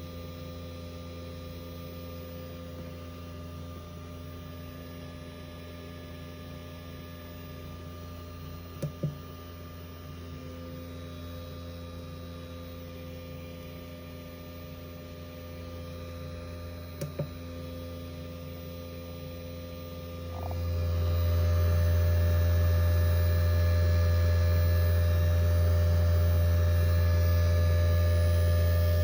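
Steady electrical hum from solar power equipment, presented as an abnormal noise. It grows noticeably louder about two-thirds of the way through, and two brief pairs of clicks are heard before that.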